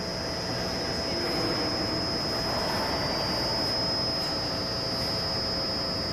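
Steady ice-arena background noise: an even rushing hum with a constant high-pitched whine running through it.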